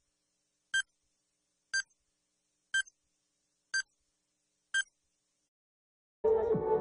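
Countdown timer sound effect: five short electronic beeps, one a second, counting down. Intro music starts near the end.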